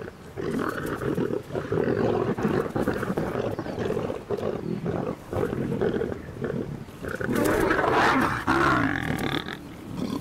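Lions growling and snarling as they feed together at a wildebeest kill. The sound is continuous and rough, with a louder, harsher outburst about three-quarters of the way through.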